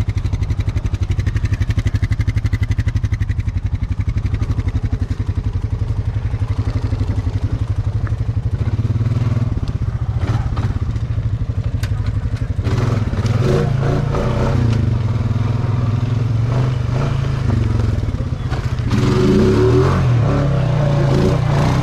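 ATV engine running at a steady pace, then revved up and down repeatedly through the second half.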